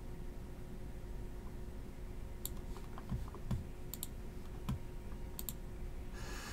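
Quiet room tone with a steady low hum, broken by about half a dozen faint, sharp clicks and light taps scattered through the middle, a few with a soft thud.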